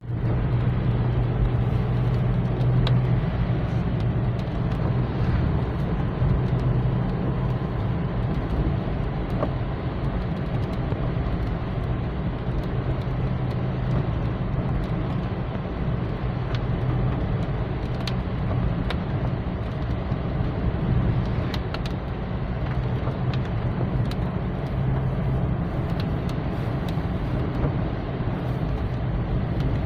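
A steady low rumble like a running motor vehicle, with a few faint clicks scattered through it.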